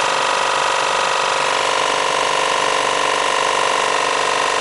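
Cylinder-head surfacing machine running, its motor and spinning cutter giving a steady pitched whine while the cutter is fed down slowly toward the aluminum 1.8T head.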